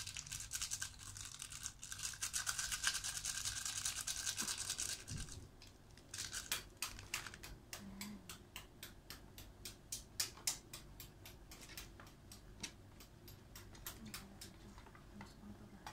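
Plastic seasoning sachet crinkling in the hands as it is squeezed and emptied over a pot: a dense, fast crackle lasting about five seconds. It is followed by scattered light snaps and clicks, with leafy greens being broken apart by hand toward the end.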